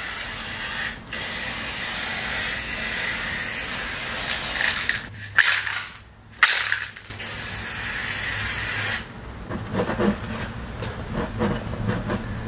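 Aerosol spray paint can hissing in long, steady sprays, with a short break about a second in and a few short bursts around the middle. Near the end the hissing stops and only scattered short taps and knocks are left.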